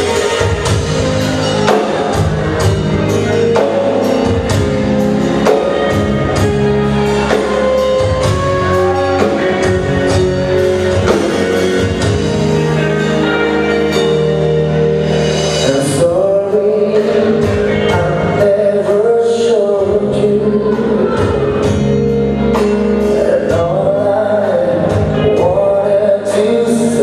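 Live band playing loud through a club PA: a drum kit keeping a steady beat about twice a second under guitar and keyboards, with a singer's voice that comes through more clearly in the second half.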